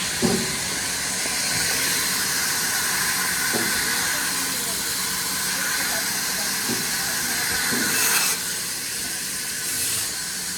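Woodworking machinery running: a steady hiss over a low hum, with a few scattered knocks and a brief louder burst of hiss about eight seconds in.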